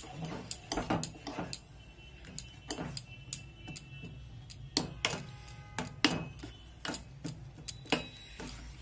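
A metal spoon stirring a thick semolina and potato mixture in a stainless steel pot, knocking and scraping against the pot's sides: irregular clinks a few times a second, with the pot briefly ringing now and then.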